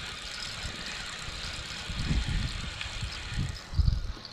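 Low rumbling bumps on a body-worn microphone, three or four of them in the second half, over a steady outdoor hiss.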